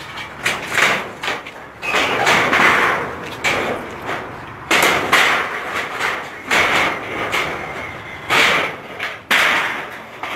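Clattering and scraping as rubble and corrugated metal roofing sheets are pulled and shifted, with knocks and noisy bursts that start and stop abruptly several times.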